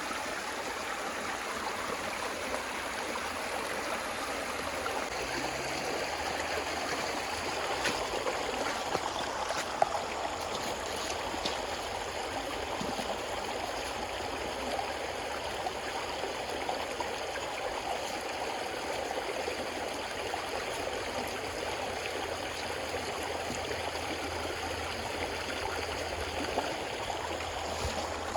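Flowing river water, a steady continuous rush, with one brief sharp knock about ten seconds in.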